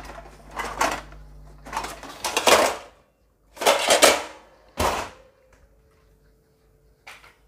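Steel kitchenware clattering and scraping around a kadai as a steel lid is taken up to cover it, in several separate bursts with a sharp metal clank about five seconds in.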